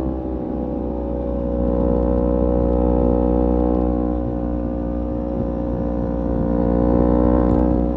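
Kawasaki Z250 parallel-twin engine through a SeaPro aftermarket muffler, running under light cruising throttle. The revs dip at the start, climb gently, ease off, climb again and then drop just before the end.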